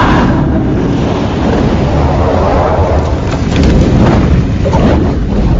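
A loud, steady rumbling and rushing sound effect, a deep low rumble under a noisy hiss.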